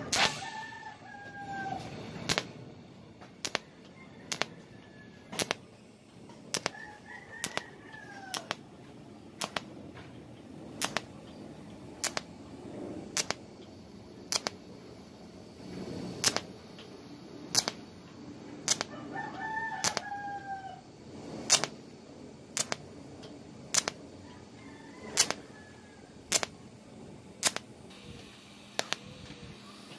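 Sharp clicks about once a second over a faint hum while the corners of a stainless steel frame are TIG tack-welded. A rooster crows several times in the background.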